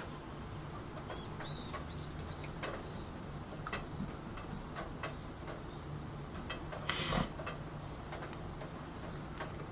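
Computer keyboard typing in scattered, irregular keystrokes over steady rain. A few short high chirps come about two seconds in, and a brief louder burst of noise about seven seconds in.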